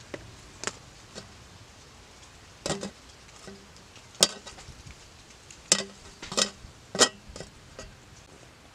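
Kitchen utensil knocks and taps: about seven sharp, irregular strikes, the loudest about four seconds in and again between six and seven seconds.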